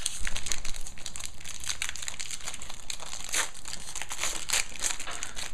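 Yu-Gi-Oh booster pack wrappers crinkling and tearing as packs are ripped open and handled, a run of irregular sharp crackles.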